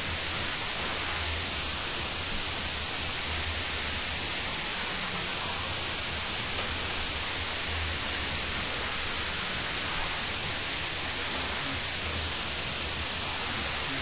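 Loud, steady hiss of recording noise from a low-quality microphone, with a faint, uneven bass pulse of music underneath.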